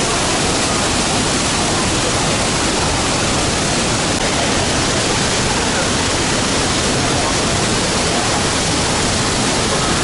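The Düden waterfall pouring into its pool: a loud, steady, unbroken rush of falling water.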